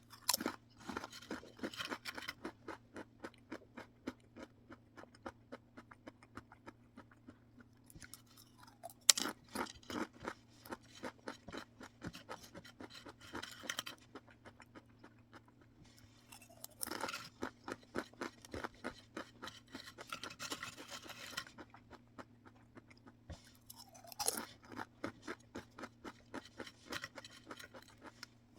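Crunchy snack being bitten and chewed close to the microphone, in four spells of quick crackling crunches with short pauses between them; a sharper bite opens several of the spells.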